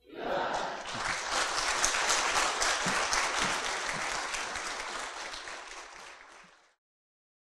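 Audience applauding with many hands clapping, fading out over the last couple of seconds.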